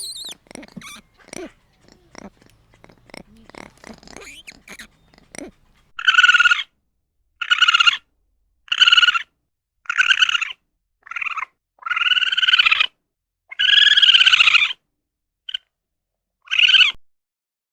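A few seconds of soft short clicks and scuffles, then about nine loud animal calls repeated at roughly one-second intervals, each a short arching cry.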